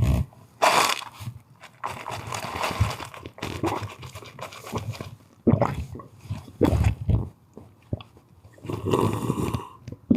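Close-up slurping of the last of a soda from a cup of ice, done as ASMR, in irregular noisy bursts with rattling and crunching of ice cubes.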